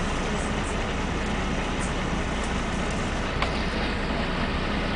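SOR B 9.5 bus's diesel engine running steadily, an even low drone with a faint click about three and a half seconds in.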